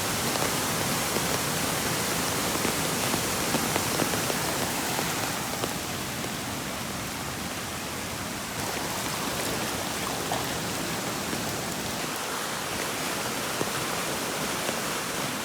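Heavy rain falling, with the steady rush of a flooded creek running high beside it.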